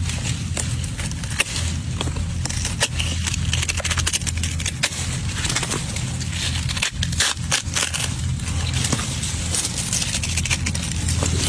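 Small watermelon broken open by hand: the rind cracks and snaps in a long run of sharp crackles as it is pried off with the thumbs and the red flesh is torn apart. A steady low hum runs underneath.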